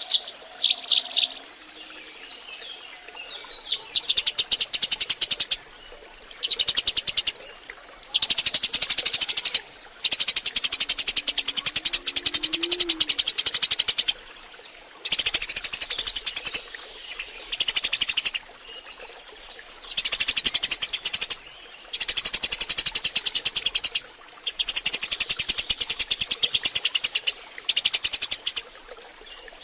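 Eurasian tree sparrows chattering: a few separate chirps at first, then dense runs of rapid, high chirping a few seconds long with short breaks between. It is a recorded lure call (pancingan) meant to draw wild sparrows in.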